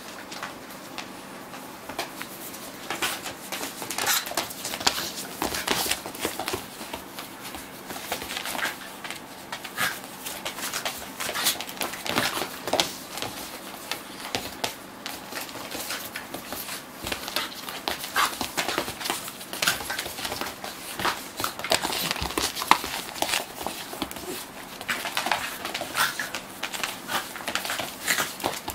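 A pit bull puppy and a miniature dachshund play-wrestling on a wooden floor: quick, irregular clicking and scrabbling of claws and paws, with bumps and occasional brief dog vocal sounds.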